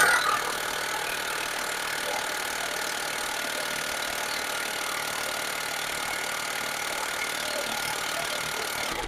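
A machine running steadily, an even mechanical hum with a faint constant whine, that cuts off near the end.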